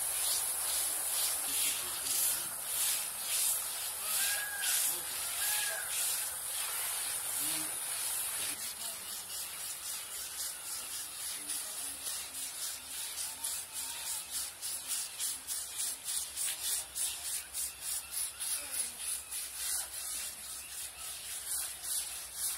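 Scrubbing strokes rubbing over an elephant's wet hide as it is washed, in a steady scratchy rhythm of a few strokes a second, quicker and slightly quieter after about eight seconds.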